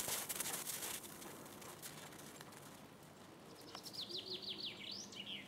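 Footsteps crunching in snow fade out in the first second. About three and a half seconds in, a small songbird sings a quick run of about eight short descending notes, ending in a rising and a falling note.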